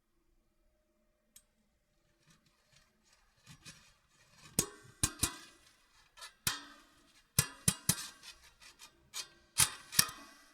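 Metal scraping and twanging with a natural echo: after a few faint ticks, a run of sharp, harsh metallic scrapes and strikes begins about four seconds in, each with a short ringing tail, coming in quick clusters until near the end.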